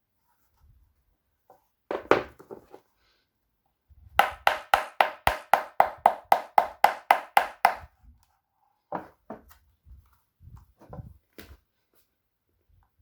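Artefyl Alegría red leather flamenco shoes with Cuban heels striking a hard surface: a rapid, even run of about fifteen sharp taps, about four a second, lasting nearly four seconds, with a few single strikes before and after.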